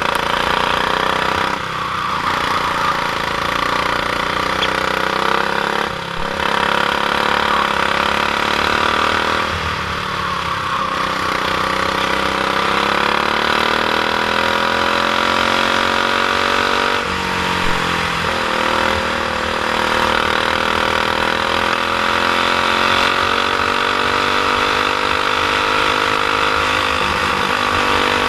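Single-cylinder Honda GX390 four-stroke kart engine under racing load, its revs climbing and falling again and again as the kart laps, with a sudden drop in revs about 17 seconds in.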